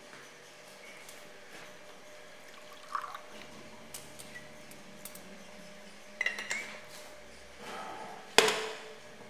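Glassware clinking: a few separate, irregular clinks and knocks of glass against glass over a faint steady hum, the loudest clink near the end.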